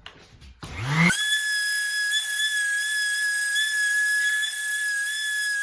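A small motor spins up fast about a second in, then runs at a steady high whine.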